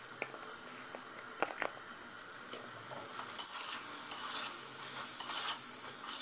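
A metal spoon stirs sliced onions into frying meat and bitter gourd in an aluminium pressure-cooker pot, over a faint sizzle. A few sharp clicks of the spoon against the pot come in the first couple of seconds, and the stirring grows busier and louder in the second half.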